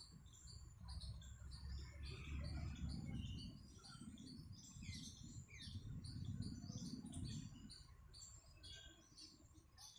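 Many small birds chirping busily with short, high, repeated notes, over a low rumble that dies away about three-quarters of the way through.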